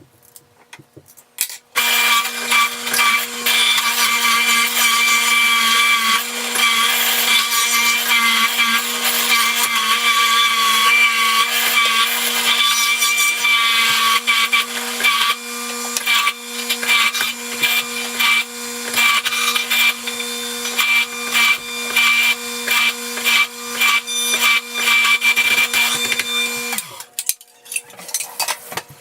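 Electric juicer motor switched on, running with a steady hum while it grinds vegetables such as carrots, beet, tomatoes and celery, with a dense crackling of produce being shredded; it starts about two seconds in and shuts off a couple of seconds before the end.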